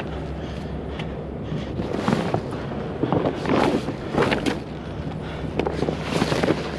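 Heavy vinyl lumber tarps rustling and crinkling in several bursts as they are pulled and folded by hand, over a steady low hum.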